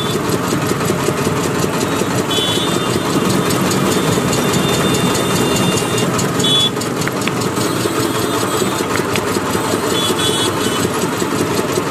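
Sugarcane juice crusher running steadily, its engine turning the flywheel, gears and rollers as cane is fed through.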